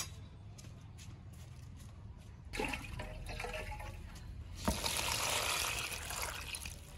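A single knock, then water poured from a red container into a plastic basin of cucumbers and cabbage wedges: a steady splashing pour that tapers off near the end.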